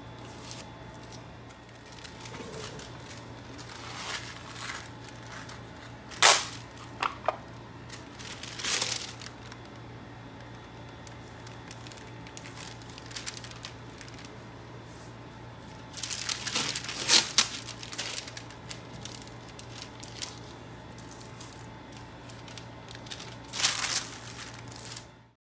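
Brown masking paper crinkling and masking tape being pulled and torn, in several short bursts over a steady low hum. The sound cuts off abruptly near the end.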